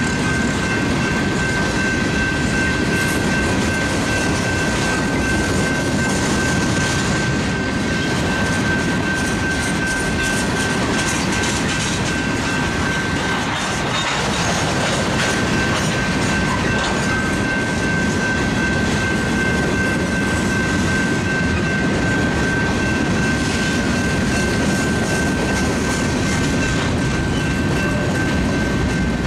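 Freight train of covered hoppers and tank cars rolling past a grade crossing: a steady rumble and clatter of wheels on rail. A thin, steady high tone sits above it.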